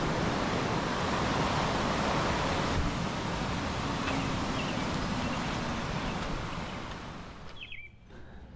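Rushing water of a small mountain waterfall: a steady hiss that fades away over the last two seconds. A short high chirp sounds near the end.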